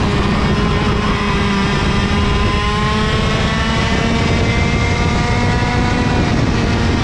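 IAME KA100 100cc two-stroke kart engines running at steady speed, the note drifting gently up and down in pitch, over a low rumble of wind on the onboard microphone.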